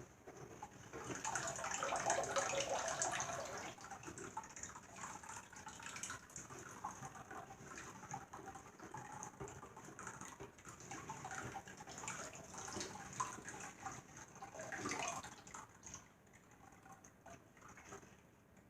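Canned milk pouring into a bowl of rice-flour batter, strongest for a couple of seconds about a second in, followed by softer, irregular wet sloshing of the mixture.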